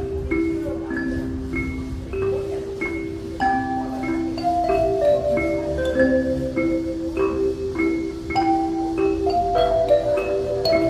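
Ocarinas playing a tune in harmony, several parts holding clear, pure notes together, over an accompaniment of short struck notes.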